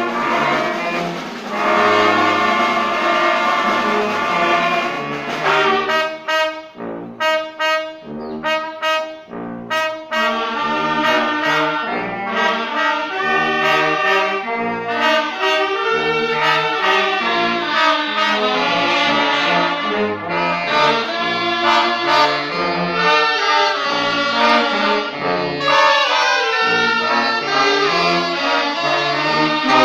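Children's wind band (banda sinfónica), brass to the fore, playing. A chord is held for about five seconds, then comes a run of short clipped chords with gaps between them, and then a continuous busy tune.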